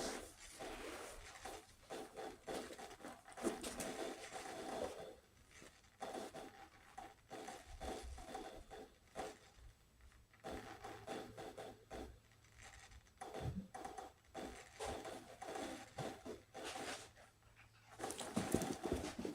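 Recorded fireworks playing quietly through a speaker: irregular faint crackles and pops, part of a low-volume sound-desensitisation track for a dog.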